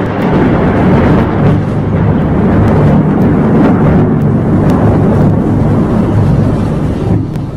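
A vehicle engine running loudly and steadily, fading away near the end.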